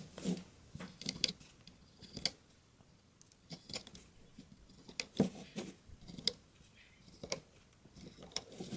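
Rubber loom bands being stretched and snapped onto the plastic pegs of a Rainbow Loom: irregular light clicks and taps, about a dozen, with short quiet gaps between them.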